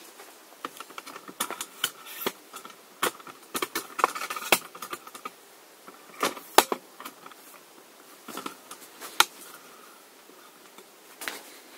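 Irregular handling noise: scattered sharp clicks, taps and knocks with light rustling, as the camera is picked up, moved and set back down. The sharpest clicks come about halfway through and again a few seconds later.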